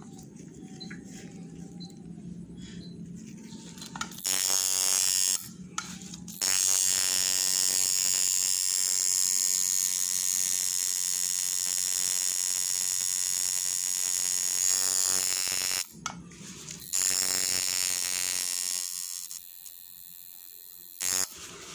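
Coil tattoo machine buzzing as it lines a tattoo into skin, running in bursts: a short run, a long run of about nine seconds, then two shorter runs, with pauses between.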